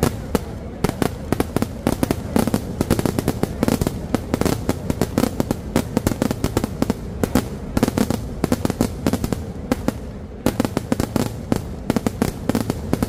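Kerala temple-festival fireworks (vedikkettu): a dense, nonstop string of firecracker bangs set off on the ground, many per second, easing briefly about ten seconds in before picking up again.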